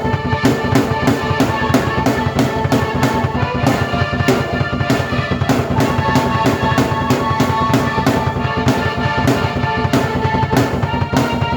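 Drum kit and keyboard played together by one player: a steady, busy drum beat under held keyboard melody notes.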